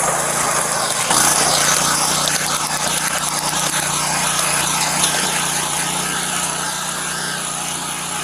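Steady engine hum with an even rushing noise from a moving vehicle, rising a little about a second in.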